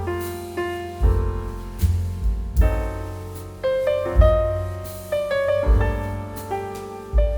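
Background piano music, with notes struck and decaying over regular low bass notes.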